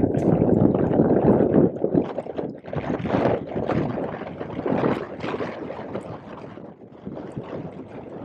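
Gusty wind noise buffeting the microphone, loud at first and easing after about two seconds.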